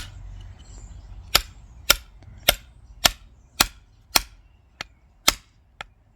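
Hammer tapping a chisel into a rock to split out an ammonite: about ten light, sharp strikes in an even rhythm of roughly two a second, two of them weaker near the end. The blows are kept light so the fossil doesn't break.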